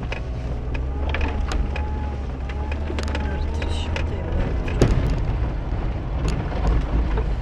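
Mercedes car's engine running at low revs, heard from inside the cabin, with a steady low rumble. Scattered sharp knocks and clicks come through as it rolls over a rough, muddy track, the loudest about five seconds in.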